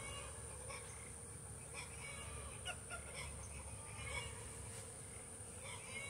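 Faint, steady buzzing of a honeybee colony around an opened hive, with a steady high insect trill and a few short bird calls scattered through it.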